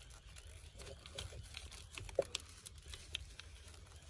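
Plastic wiring connectors and harness being handled with gloved hands: faint rustling and scattered small plastic clicks, with one sharper click about two seconds in.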